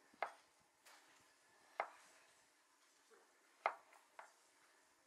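Kitchen knife slicing a zucchini, the blade knocking on a wooden cutting board: three sharp knocks a second and a half to two seconds apart, with a couple of fainter ticks between.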